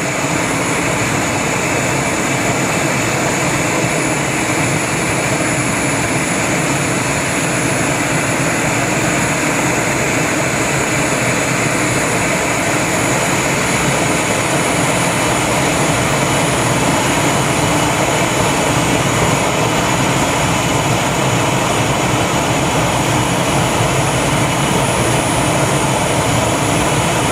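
Boeing 727-2M7's three JT8D turbofan jet engines, loud and steady with a high-pitched whine over the rush of jet noise, as the airliner lands.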